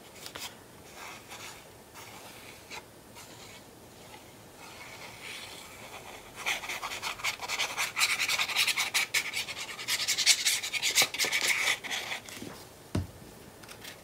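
Applicator tip of a liquid glue bottle scraping and rubbing along the back of a paper strip as glue is spread, with paper rustling, starting about six seconds in and stopping about two seconds before the end. A single knock follows.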